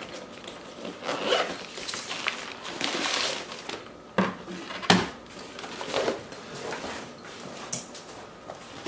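Rustling fabric and zipper of a soft cooler bag as a Bentgo Fresh plastic lunch box is pulled out of it. There are two sharp knocks about four and five seconds in, the hard plastic box meeting the tabletop.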